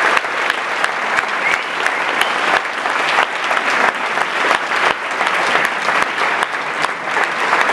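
Large audience applauding steadily: dense clapping from many hands at once.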